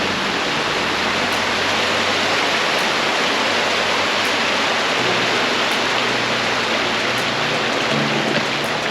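Mountain creek rushing steadily: a dense, even water noise, with a faint low hum underneath.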